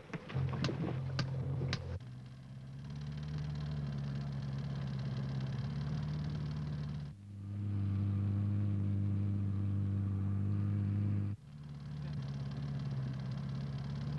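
A few sharp knocks, then small gasoline engines running steadily, the sound changing abruptly twice as takes are cut together. The loudest stretch, in the middle, is the engine of a pile-driver rig on a float. Near the end, a skiff's outboard motor is running.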